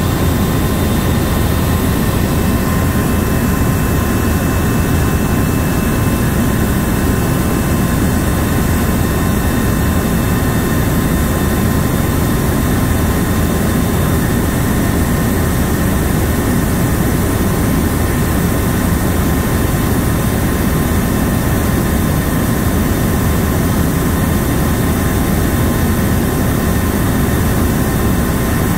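Steady cabin noise of an Airbus (Eurocopter) H155 helicopter in flight: a deep, even rumble from the rotor and twin turboshaft engines, with faint steady whining tones above it.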